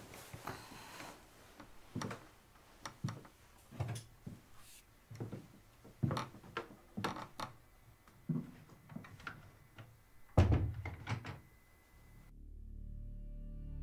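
A series of irregular knocks and thumps, spaced unevenly, with the loudest thump about ten seconds in. Soft music swells in near the end.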